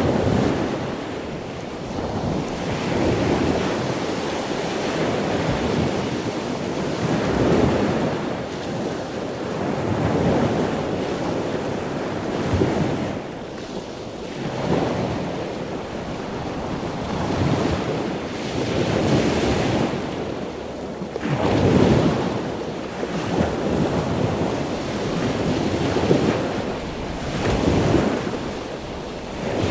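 Ocean waves breaking and washing in, a continuous rushing surf that swells and falls every few seconds.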